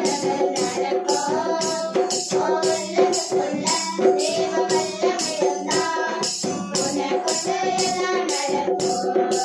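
A child singing a song into a microphone over musical accompaniment with a tambourine beat of about two strikes a second.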